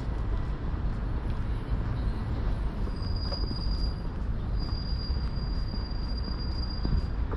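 City traffic rumbling steadily, vehicles going by on the street. A thin high whine sounds twice, once about three seconds in and again soon after for about two seconds.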